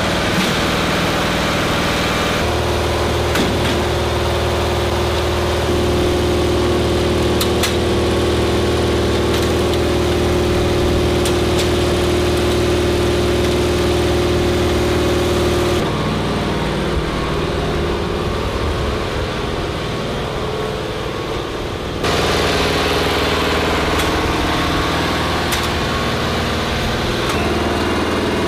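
An engine running steadily at idle, its tone shifting abruptly a few times and turning duller and a little quieter for several seconds in the second half.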